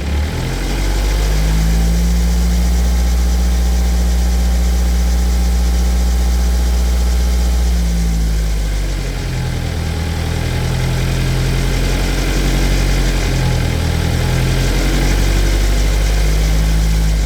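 BMW 320d's N47 two-litre four-cylinder turbodiesel running, held at a steady raised speed, then dropping about eight seconds in to a lower, less even running speed.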